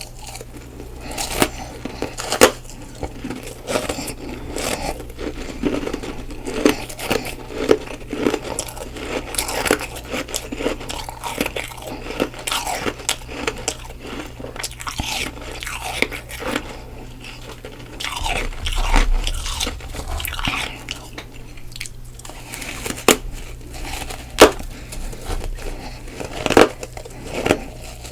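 Close-miked biting and chewing of soft freezer frost: irregular wet crunches and crackles, in big mouthfuls.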